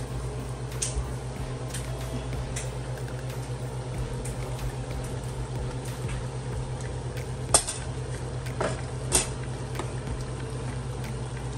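Serving spoon knocking and scraping against a cooking pot as chicken is added over the rice, with a few sharp clinks, the two loudest about seven and a half and nine seconds in. A steady low hum runs underneath.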